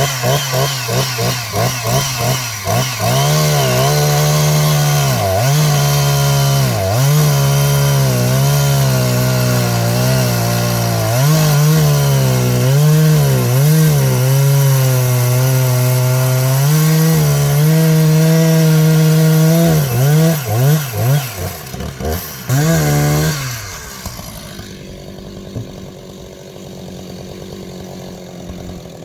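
Husqvarna 359 two-stroke chainsaw cutting into a pine log at full throttle, its engine pitch sagging again and again as the chain loads up in the wood and recovering. Near the end it revs up and down a few times, then drops to a quiet idle.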